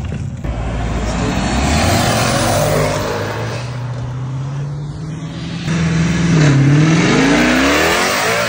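Cars accelerating hard past on a road, engine pitch climbing. Loudest near the end, where a Dodge Challenger passes close at full throttle, its note dipping once at a gear change and rising again.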